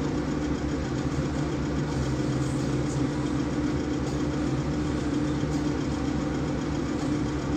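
Steady low mechanical hum with a constant tone and no changes in level.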